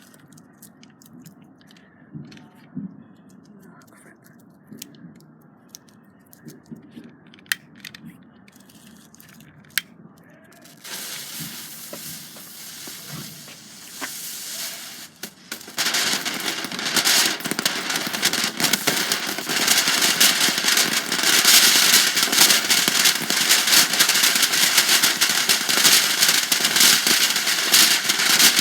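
A few faint clicks, then a hiss starts, and just past halfway a firework goes off in loud, dense, continuous crackling that keeps going.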